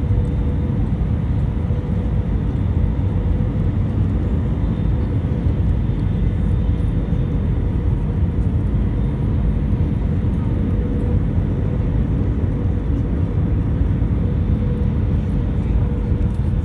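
Airliner cabin noise heard from a window seat beside the jet engine during the approach to landing: a steady rumble of engine and rushing air with a steady hum running through it.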